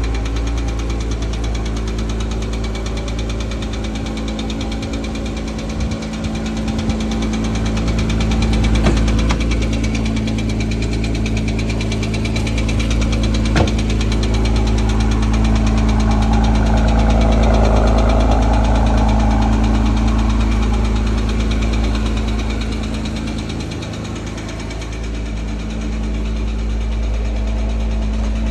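2008 Porsche Cayman S flat-six idling steadily with a ticking sound, which the owner takes for bore scoring. Two brief sharp clicks stand out partway through.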